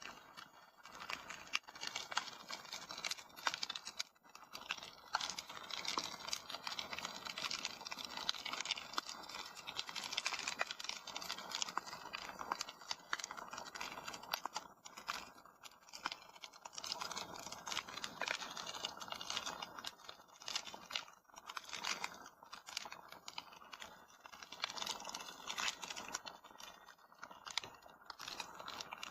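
Fire crackling in a fireplace: a continuous run of small snaps and pops over a soft hiss.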